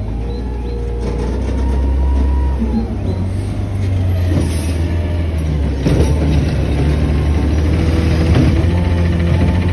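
Garbage truck pulling up close with its engine running: a loud, deep rumble whose pitch shifts as it slows, with a clank about six seconds in.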